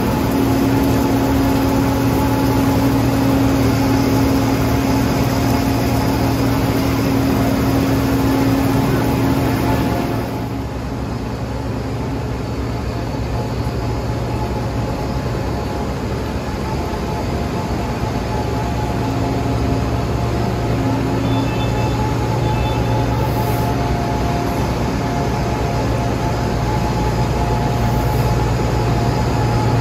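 Heavy diesel machinery of an asphalt milling operation running steadily, a loud continuous engine drone with a low hum. About ten seconds in, the sound drops slightly to a more distant drone of the same kind.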